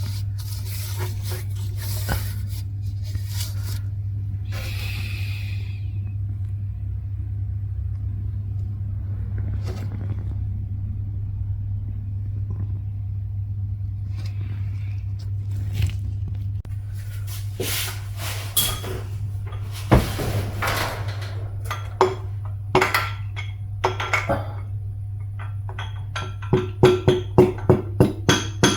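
Background music: a steady low drone, with a rhythmic percussion beat coming in near the end and scattered clicks over it.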